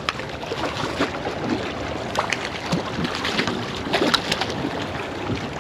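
Steady wind and water noise with scattered light clicks and taps.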